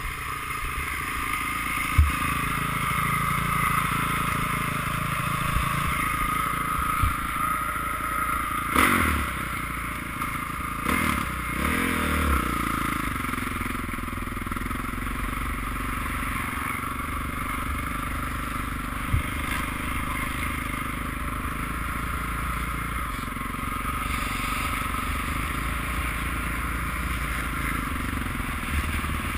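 Honda CRF450 four-stroke single-cylinder dirt bike engine running at low speed, heard from a helmet camera, with a few sharp knocks and bumps.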